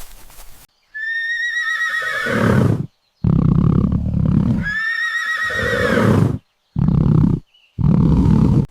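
Horse whinnying twice, each call starting as a high, quavering whinny and dropping into a low rumble, followed by two shorter, low calls, with abrupt cuts between them.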